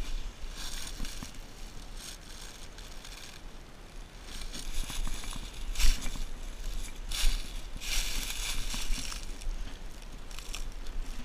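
Footsteps crunching and rustling through dry leaf litter, in uneven bursts with a few sharper crunches.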